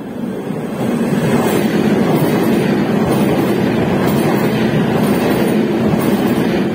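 Railjet passenger train passing close by at speed: a steady rumble of wheels on rail that swells about a second in as the coaches reach the platform, then holds.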